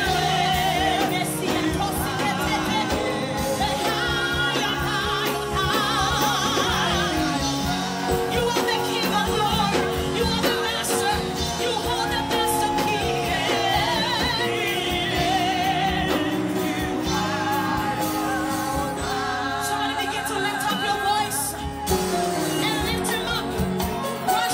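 Live gospel worship song: singers on microphones, with wavering held notes, over electric bass and drums.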